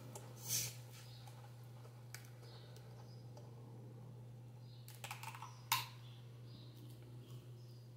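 A few short, sharp clicks and soft small mouth noises of eating, with a cluster of clicks about five seconds in, over a steady low electrical hum.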